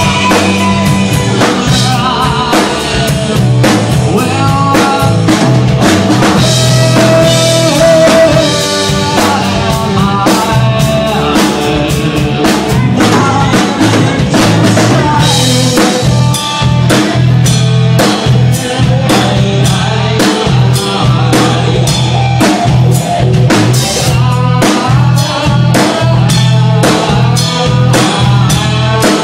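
Live band music: a full band playing with a steady drum-kit beat over a strong bass line.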